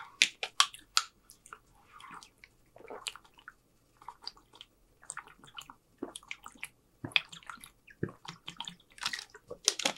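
Plastic water bottle opened with a quick run of clicks, then water swallowed from the bottle in gulps, with scattered clicks of the plastic.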